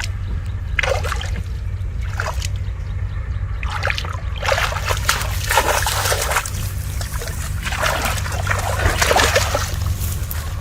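Shallow water in a flooded rice field splashing and sloshing in irregular bursts as someone gropes for fish by hand, busiest about halfway through and again near the end, over a steady low rumble.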